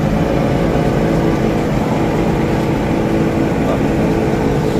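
Engine of a truck-mounted crane running steadily under a low rumble while it hoists a heavy potted bonsai.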